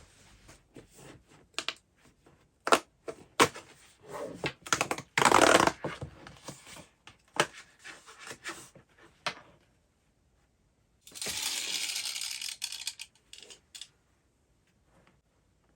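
Small hard objects being handled: a run of sharp clicks and taps, followed about eleven seconds in by a scratchy rushing noise lasting about two seconds.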